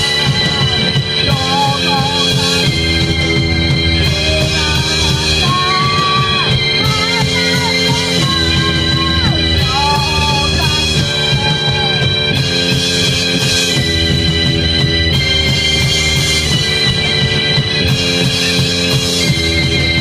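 Live rock band: a woman singing over electronic keyboard chords and a drum kit. The singing runs through the first half, then keyboard and drums carry on alone.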